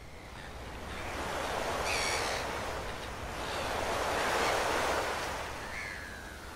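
Ocean surf breaking and rolling onto a sandy beach, swelling twice, with a brief high-pitched call about two seconds in.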